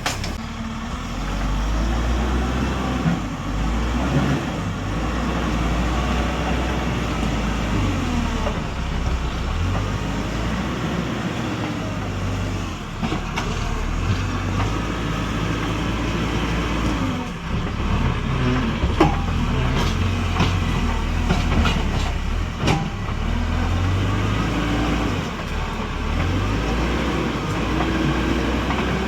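Diesel tractor engine running under working load, its pitch rising and falling several times, with a few sharp knocks now and then.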